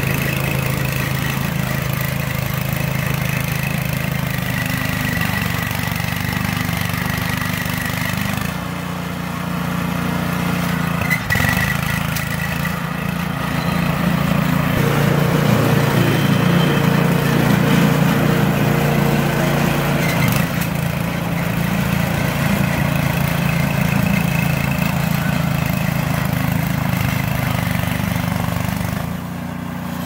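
John Deere two-stage snowblower running on its Princess Auto replacement gas engine while it blows through deep snow. The engine runs steadily, its note dropping for a few seconds about a third of the way in, coming up again, and dipping once more near the end.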